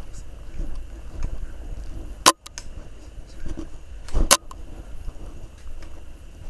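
Low rumbling handling noise from a camera carried while walking, with faint scattered ticks and two sharp loud knocks, about two and about four seconds in.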